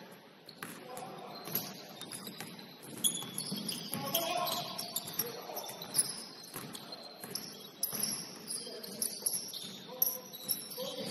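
Basketball game sounds in a gym: a basketball bouncing on the hardwood court in scattered single knocks, short high squeaks of sneakers on the floor, and players calling out.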